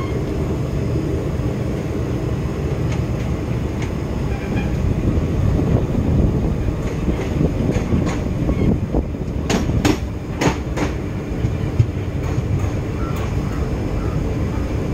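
An express train running on its track, heard from on board: a steady rumble of wheels on rails. About two-thirds of the way in comes a quick cluster of sharp clacks, as the wheels pass over rail joints or points.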